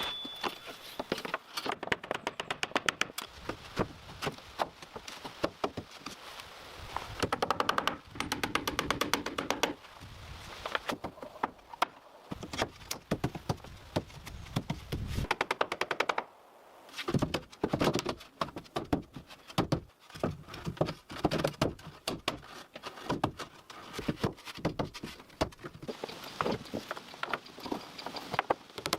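Rapid series of sharp knocks and thuds, several a second in bursts, with a short lull a little past halfway.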